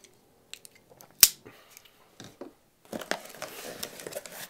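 Cardboard shipping box being opened by hand: a sharp click a little over a second in, then from about three seconds a continuous rustle and scrape of the cardboard flaps being pulled open.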